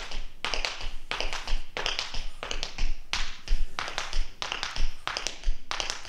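Tap shoes dancing riffles with heel drops in a steady rhythm. Each riffle is a quick group of three taps, a riff forward and a spank back, followed by a heavier heel drop.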